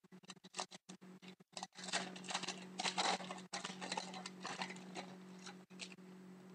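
Foil wrapper of a Rookie Anthology hockey card pack crinkling and tearing as it is pulled open by hand: an irregular crackle, loudest a couple of seconds in, that stops shortly before the end. A steady low hum runs underneath.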